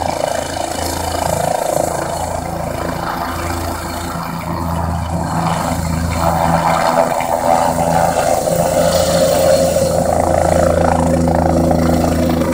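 Helicopter running on the helipad with rotors turning, then lifting off about six seconds in and climbing away; the rotor and engine sound is steady and grows louder as it takes off.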